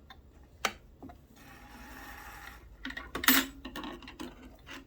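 Handling noise at a sewing machine with a monogrammer attachment: sharp metallic clicks and rattles. There is a short rustle in the middle, and a cluster of clicks over a low hum near the end.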